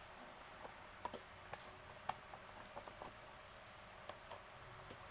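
Scattered light clicks and taps as the electric fan's cover and parts are handled during disassembly, about a dozen short ticks spread over a few seconds.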